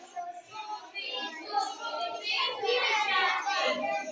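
Young children singing a Hindi action rhyme together in a sing-song chant.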